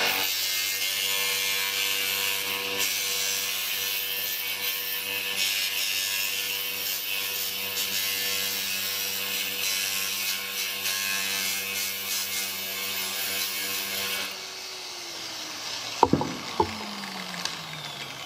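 Angle grinder with a Bisazza glass-mosaic cutting blade running at full speed, grinding a curved cut through glass mosaic tiles with a steady hiss. About fourteen seconds in the cut ends and the motor winds down with a falling whine, followed by two sharp knocks.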